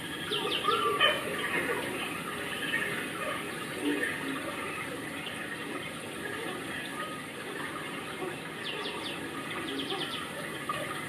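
Steady rain with water running and splashing, with a few short high chirps near the start and again near the end.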